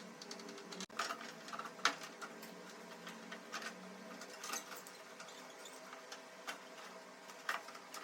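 Irregular light clicks and knocks of hand tools and metal parts being worked on a window air conditioner, over a faint steady hum.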